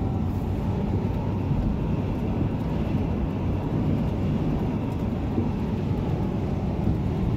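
Steady road and engine noise inside a pickup truck's cab at highway speed, a constant low rumble.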